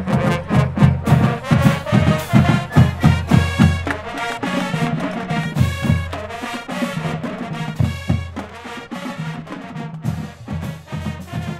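Brass music with a strong, regular drum beat: trumpets and trombones playing held notes over heavy percussion hits.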